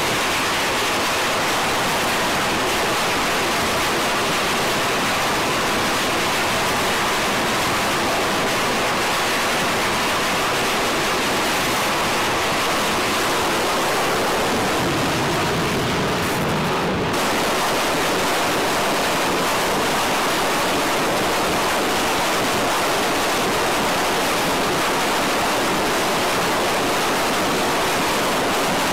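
Steady rushing noise of F/A-18 Super Hornet jet engines running on an aircraft carrier flight deck during catapult launches, loud and even throughout.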